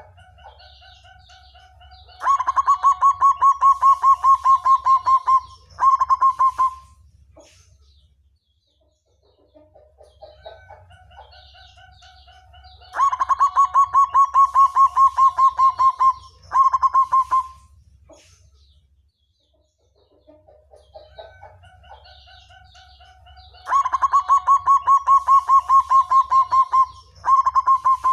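Zebra dove (perkutut) of the black variety singing: soft opening notes, then a long, fast run of staccato coos and a short closing phrase. The song comes three times, about every eleven seconds.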